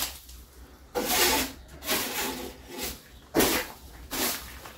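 Broom on a long pole brushing and scraping across wooden ceiling boards in five short strokes, the first about a second in.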